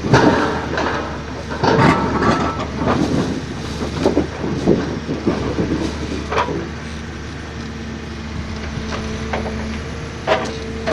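Forestry machine's diesel engine running steadily, with irregular metal clattering and knocks from the machine working, thickest in the first half and again twice near the end.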